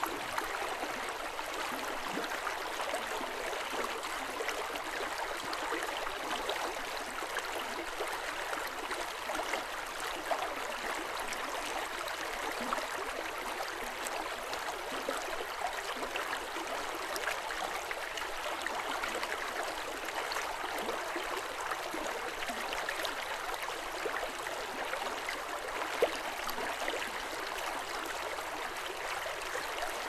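River water flowing softly and steadily over rocks, an even rush of running water with small splashes and trickles through it, and one sharp tick near the end.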